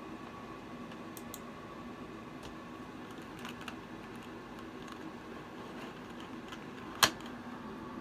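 Scattered light clicks and taps over a steady electrical hum, with one sharp, much louder click about seven seconds in.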